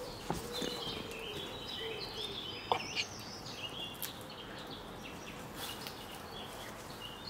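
Woodland birds singing: a high, twittering song through the first three seconds or so, and a low dove-like coo in the first second and a half, with a couple of faint knocks.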